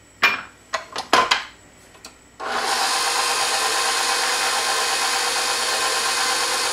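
A few short knocks and clicks, then about two and a half seconds in a KitchenAid stand mixer switches on and runs steadily, its paddle beating cookie dough.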